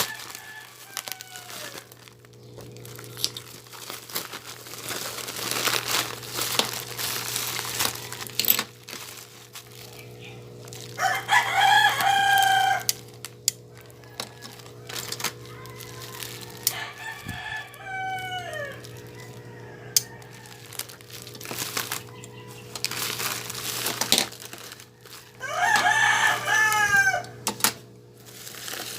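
Plastic packaging crinkling and rustling as supplies are unboxed, with a rooster crowing loudly three times, each crow about two seconds long and dropping in pitch at its end. A steady low hum runs underneath.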